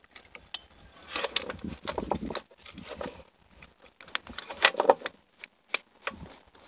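Small metal carburetor parts clicking, rattling and scraping in the hands as the throttle slide is seated and the top cap is threaded onto the carburetor body, in two bursts about a second in and about four seconds in.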